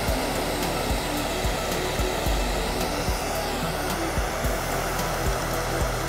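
Handheld gas torch blasting its flame onto a burning plastic toy car: a steady rushing hiss. Background music with low thumps plays underneath.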